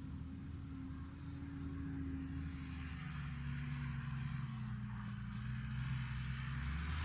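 New Holland TM140 tractor's six-cylinder diesel engine running steadily, its pitch sagging a little through the middle and rising again near the end as the sound slowly grows louder.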